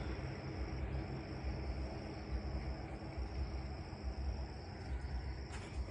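Crickets trilling: a steady high-pitched trill with short breaks about a second in, around three seconds and near five seconds, over a low background rumble.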